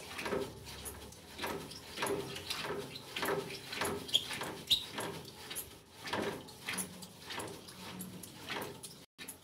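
Homemade CPVC hand-operated test pump being worked steadily, its plunger rod sliding in and out in regular strokes, a little under two a second, with a brief high squeak now and then. It is pumping water into new plumbing to fill it for a hydrostatic pressure test.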